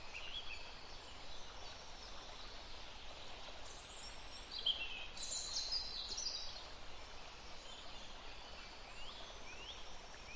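Birds chirping now and then over steady outdoor background noise, with a cluster of short, high calls around the middle.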